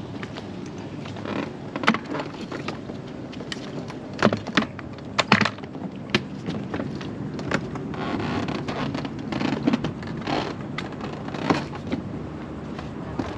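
Handling clatter of a folding electric kick scooter being unfolded and stood up on a concrete dock, with gear handled in an inflatable dinghy alongside. A run of sharp clicks and knocks, loudest about four to five and a half seconds in, with scraping between them.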